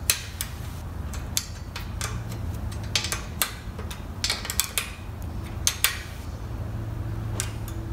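Short metallic clicks and taps of a 10mm ring spanner working a steel nut and bolt on a go-kart's crash-bar bracket, irregular and several a second at times, over a steady low hum.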